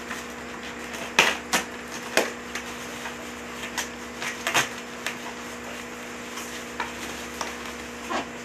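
Black plastic parcel wrapping being torn and crumpled by hand, in scattered, irregular crackles and rustles.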